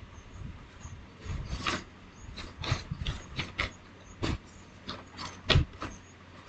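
Plastic bottles and tubes of craft supplies being picked up, moved and set down on a cluttered table: an irregular series of short clicks and knocks.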